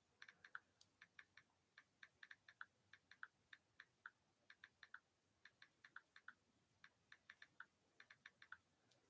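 Faint typing on a keyboard: irregular runs of quick, light keystroke clicks, several a second, with short pauses between runs.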